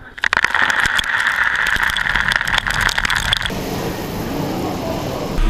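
Coffee vending machine whirring, with a dense clatter of coffee beans pouring out of it instead of a drink. After about three and a half seconds this stops and gives way to the even hubbub of a crowded hall.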